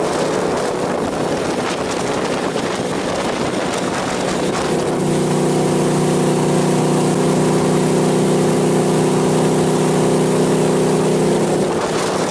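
Malibu ski boat's inboard LS1 V8 running under way, with wind and water rushing. About five seconds in, a steady engine tone comes up clearly and holds until shortly before the end.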